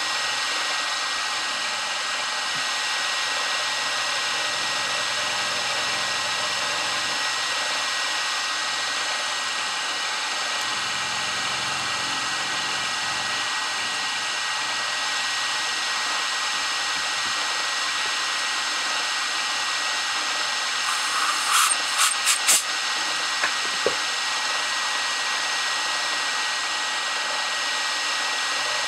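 Grizzly G0704 milling machine running, a small end mill cutting 6061 aluminum: a steady machine whine with an even cutting noise and a strong held tone. About three-quarters of the way through there is a quick cluster of sharp clicks.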